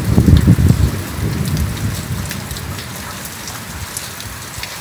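Steady rain falling, with scattered sharp ticks of drops. A loud low rumble during the first second or so dies away.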